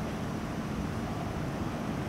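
Steady low rumbling outdoor noise, with no distinct event standing out.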